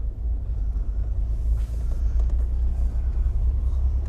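Steady low rumble of a car's engine and road noise, heard from on board while driving.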